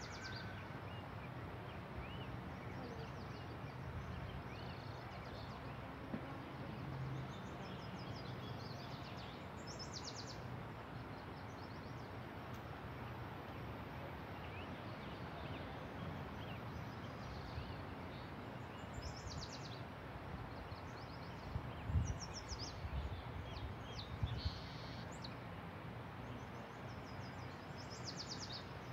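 Outdoor ambience: a steady rushing background with birds calling in short trills now and then, and a few brief low knocks late on.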